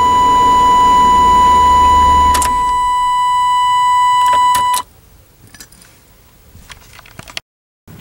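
A 1996 Chevrolet Suburban's engine runs on its newly replaced ignition lock cylinder, with a steady high-pitched beep over it. About two and a half seconds in, a click and the engine stops. The beep cuts off near five seconds in, followed by a few light clicks.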